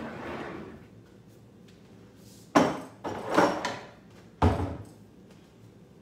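A glass canister's lid scraping shut, then, about two and a half seconds in, three knocks and thuds from a kitchen cupboard door being opened and shut as the canister is put away.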